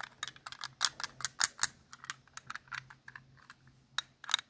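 An irregular run of quick, light clicks and taps, several a second, loudest about a second and a half in and again near the end.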